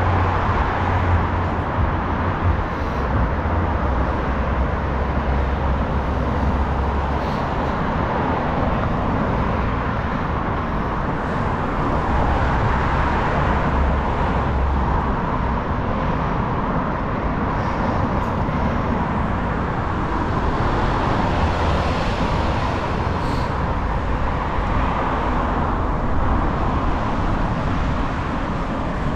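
Steady road traffic noise from passing cars, with a low rumble underneath.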